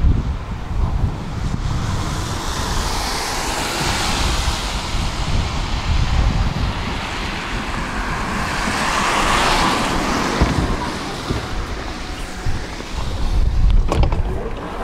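Tram drawing into a stop, its running noise swelling to a peak about two-thirds of the way in and then easing, with a few sharp clicks near the end. Gusty wind buffets the microphone as a low rumble throughout, and an earlier swell of passing street traffic comes about four seconds in.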